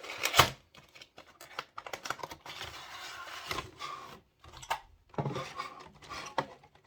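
A model wagon's box and plastic packaging being handled and opened: sharp clicks and knocks, the loudest just under half a second in, with a rustle of packaging in the middle and more clicking near the end.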